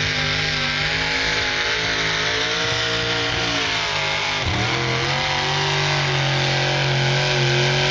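A pulling tractor's engine running hard under load as it drags a weight-transfer sled, a loud steady drone that sags briefly in pitch about halfway through and then climbs back.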